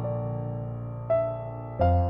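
Background piano music: slow, sustained notes, with a new note struck about a second in and another near the end.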